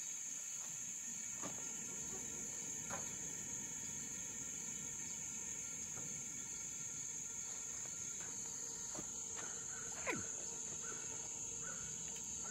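Steady high-pitched insect chorus in the surrounding woods, with a few faint clicks and knocks scattered through it.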